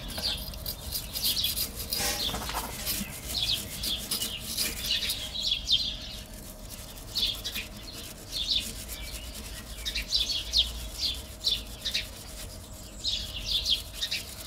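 Small wire brush scrubbing caked dirt off a car's suspension height sensor and its mounting, rapid scratchy strokes in short runs with brief pauses between them.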